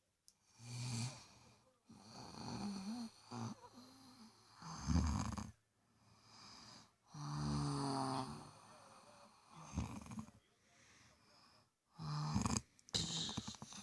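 A person snoring: about six separate snores of uneven length with short pauses between them, some with a low rattle, the loudest about five seconds in.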